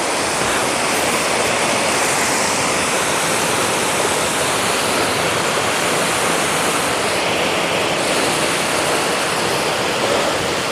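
Curug Merak waterfall pouring, a loud, steady rush of falling water, running full with rainy-season flow.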